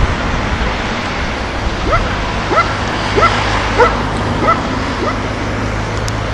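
A dog yipping over and over, short barks that rise in pitch, about every two-thirds of a second, over a steady background rumble with a low hum that comes in about two seconds in.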